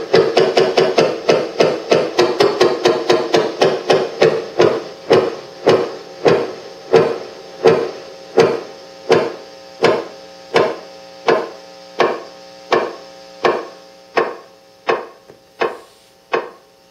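Effects pedals pulsing a repeated pitched tone in an even rhythm. The repeats slow from about three a second to about one and a half a second, then fade out near the end.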